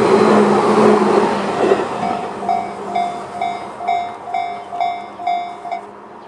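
Tobu 10030-series electric train running past the level crossing and fading away over the first couple of seconds. The crossing's electronic warning bell (Tobu 'sound C') dings about twice a second, then stops shortly before the end as the warning ends after the train has cleared.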